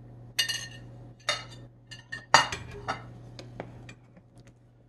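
A cooking utensil clinking and knocking against the soup pot while the chicken is stirred in: about half a dozen sharp strikes with a short metallic ring, the loudest a little over two seconds in, over a steady low hum.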